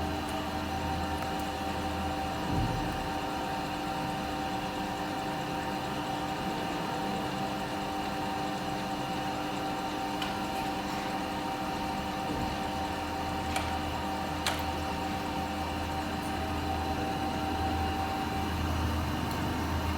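Jones Shipman 1311 universal cylindrical grinder running: a steady machine hum with a constant whine, and a few light clicks.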